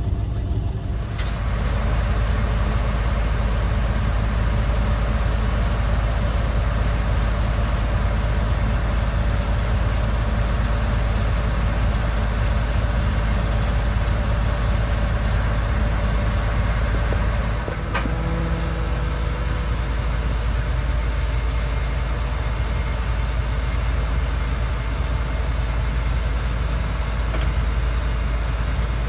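Vehicle engine running steadily, a low rumble, with a single click about 18 seconds in.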